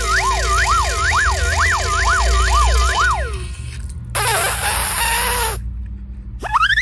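Siren-like sound effect: a rapid series of whooping tones, each rising and falling, about two a second, for the first three and a half seconds. Then comes a hissing burst with falling tones for about a second and a half, and near the end a sharply rising whistle.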